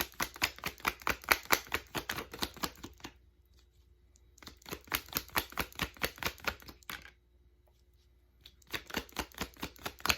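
A deck of tarot cards being shuffled by hand: quick, rapid slapping of cards in three bouts, with two short pauses between them.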